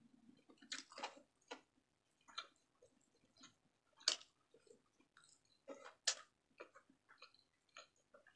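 Close-up chewing and mouth clicks of someone eating fish with her fingers: soft, irregular smacks, the loudest two about four and six seconds in.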